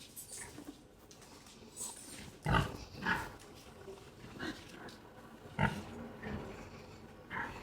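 Pig grunting: about six short, separate grunts, the loudest about two and a half seconds in and again about five and a half seconds in.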